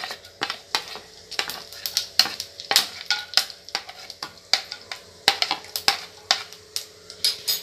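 A metal spoon scrapes and taps whole spices (dried red chillies, cinnamon sticks, cardamom pods) off a plate into a kadai of hot oil. It makes a string of irregular clicks and scrapes, several a second, over a light sizzle of the oil.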